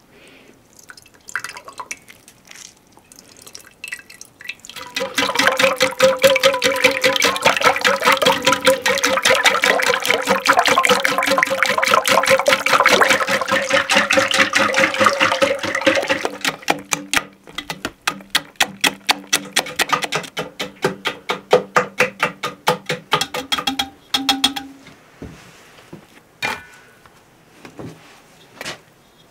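A metal whisk beating a creamy sauce in an enamel pot: a fast run of clinking strokes with the pot ringing, slowing to a few separate strokes a second after about sixteen seconds, and stopping a few seconds before the end.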